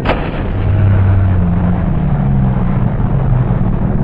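Homemade twin-motor radio-controlled model plane crashing into the ground: one sharp crack right at the start as it breaks apart, and the steady whine of its electric motors cuts off. A loud low rumble follows.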